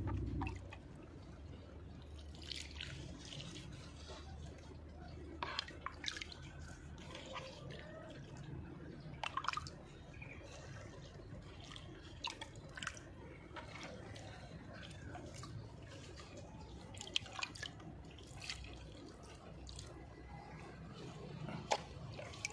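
Water scooped from a bucket with a plastic dipper and poured onto the soil of potted seedlings, in irregular splashes and trickles.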